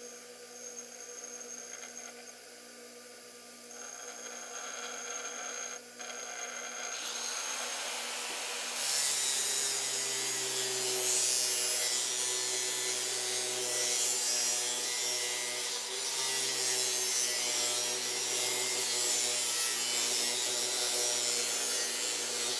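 Bench grinder running with a steady hum while a square lathe tool bit is held against its fine-grit wheel. A hiss of steel being ground starts about seven seconds in and grows loud about two seconds later, as the nose radius is ground onto the bit's tip.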